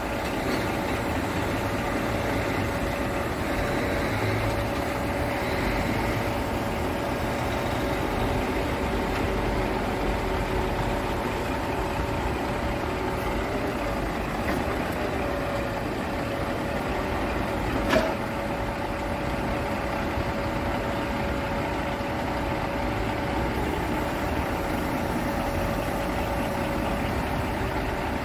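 Scania P truck's diesel engine idling steadily while its hydraulic loader crane is worked, with a steady whine over the engine. A single sharp knock about 18 seconds in.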